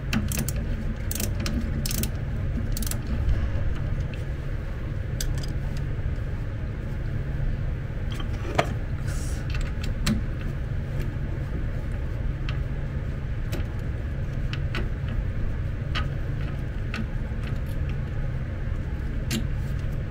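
Irregular light metallic clicks and taps of fasteners and parts being handled while screws are worked loose on a power wheelchair's frame near its motor-gearbox, over a steady low hum.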